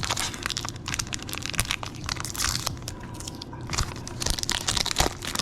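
Foil One Piece card game booster pack wrappers being torn open and crumpled, crinkling and crackling irregularly.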